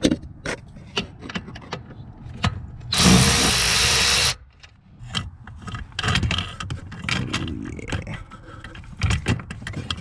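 Cordless ratchet spinning a nut for about a second, about three seconds in, with metal clicks and knocks of the socket and extension against fittings under the dashboard before and after.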